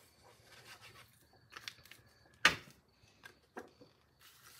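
Faint rustling and rubbing of card stock as a glued paper panel is handled and pressed down onto a card base. There are a few small clicks and one sharp knock about two and a half seconds in.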